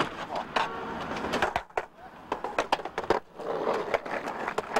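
Skateboard on asphalt: wheels rolling and several sharp clacks of the board hitting the pavement, with the sound dropping almost away twice for a moment near the middle.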